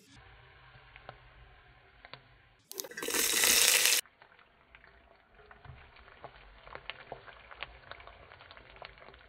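Mustard seeds crackling in hot oil, then about three seconds in a loud hiss lasting about a second as chopped onions hit the oil, followed by quieter sizzling with scattered pops as the onions fry.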